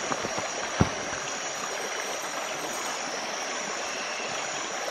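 Steady rush of river water flowing, with a steady high-pitched drone above it and a single knock a little under a second in.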